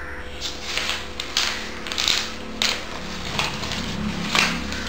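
Close handling noises: a run of short, irregular rustles and crinkles, loudest about a second and a half in, around two seconds, and again near the end.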